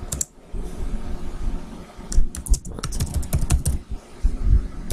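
Typing on a computer keyboard: irregular key clicks with low knocks as the keys bottom out.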